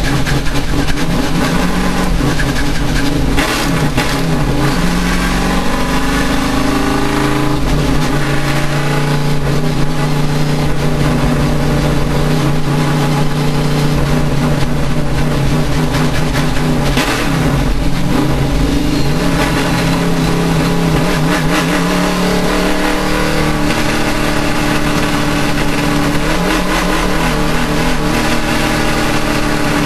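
Race car engine running hard, its pitch climbing and dropping several times as it accelerates and changes speed. The owner reports an engine misfire in this car.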